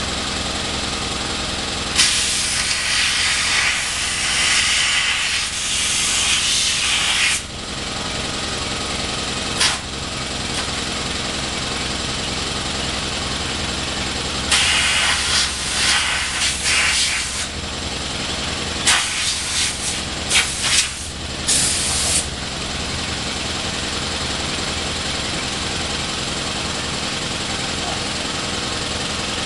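Compressed-air blow gun hissing in blasts as it blows dirt off a mower: one long blast of about five seconds, a short puff, a three-second blast, then several quick puffs. An engine runs steadily underneath.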